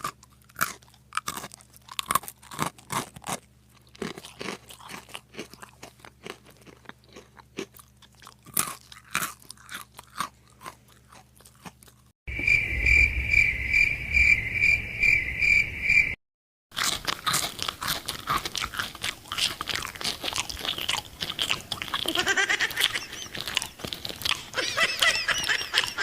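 Close-up crunching and chewing of a piece of petha, sharp crisp bites in quick succession. About twelve seconds in, a high beeping tone pulses about three times a second for about four seconds and cuts off, then the loud crunching resumes more densely, with warbling squeaks mixed in near the end.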